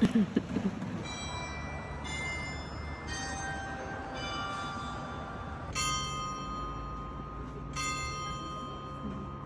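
Tuned bells chiming a slow run of single strikes, about one every second or two. Each strike rings on and overlaps the next, and the strikes about six and eight seconds in are the loudest.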